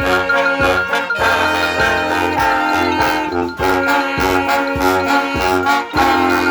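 A brass band playing an upbeat tune, with trombones and trumpets prominent over a steady beat.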